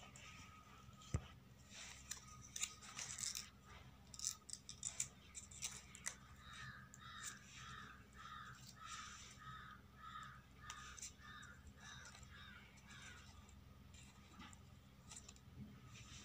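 Faint rustles and light taps of paper flowers and paper pieces being handled and set down on a board. Through the middle, a bird calls over and over, about two calls a second, for around six seconds.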